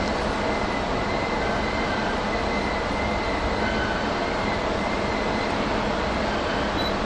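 Steady running noise of a train at a station, an even rumble and hiss with a faint steady high whine over it.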